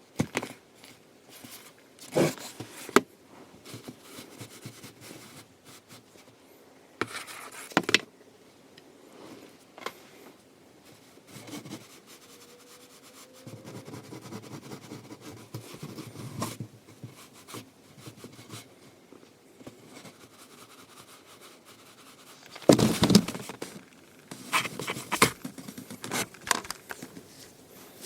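A cat scrambling after a dangled string: irregular scuffling, scraping and light taps in short flurries, the loudest flurry coming about three-quarters of the way through.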